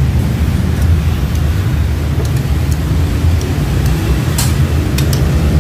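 Steady low background rumble, like street traffic, with a few light clicks of eating utensils against a bowl about two seconds in, midway, and near the end.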